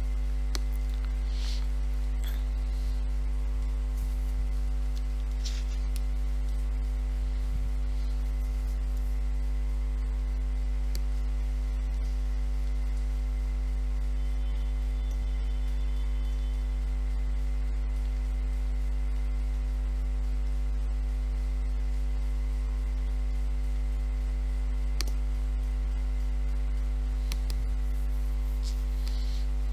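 Steady electrical mains hum picked up by the recording setup, a low drone with a stack of even overtones and no change in level. A few faint clicks sound over it.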